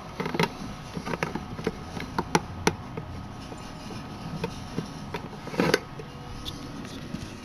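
Light clicks and knocks of a mini fridge's removable inside rack being handled and taken out, scattered irregularly, with louder knocks about two and a half seconds in and again near six seconds.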